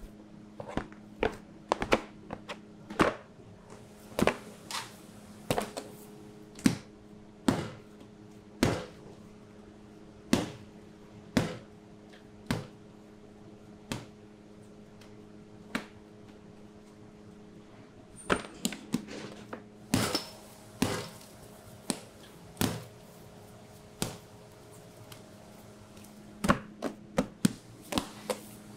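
Bread dough being cut with a metal bench scraper and worked by hand on a metal sheet pan and counter: a series of sharp knocks and thuds, irregular and roughly one a second, bunching up about two-thirds of the way through and again near the end, over a steady low hum.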